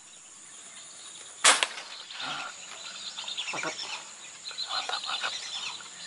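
A single air-rifle shot about a second and a half in: one sharp crack with a short snap right after it, the loudest sound here.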